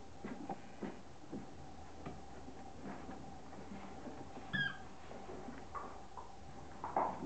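Five-week-old fox terrier puppies play-fighting: scattered scuffling and pattering of paws on bedding, with one short high squeak about halfway through and a louder brief puppy sound near the end.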